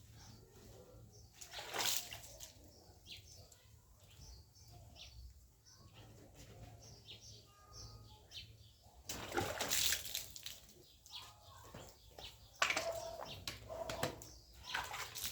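Water splashing and pouring in several bursts as a refrigerator is washed down.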